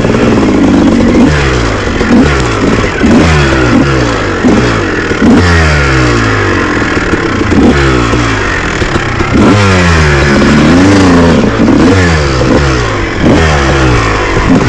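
Dirt bike engine repeatedly revving up and dropping back, roughly once a second, as the throttle is worked up and down while riding a rough trail.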